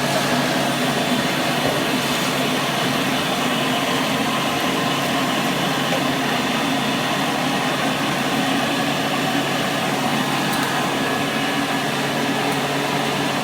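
Hoover Model 700 upright vacuum cleaner running steadily: an even motor hum with a rush of air, no change in speed.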